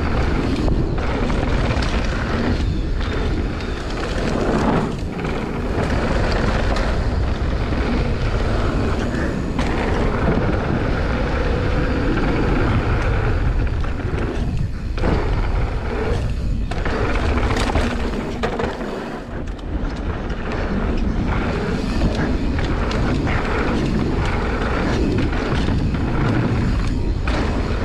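Wind buffeting a GoPro's microphone as a mountain bike rolls fast down a dirt jump trail, mixed with tyre rolling noise; the loud rush dips briefly a few times.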